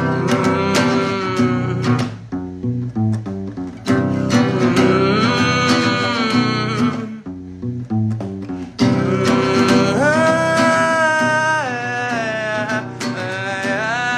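Acoustic guitar strummed while a man sings, in three phrases with short breaks between, the last phrase rising to long held notes.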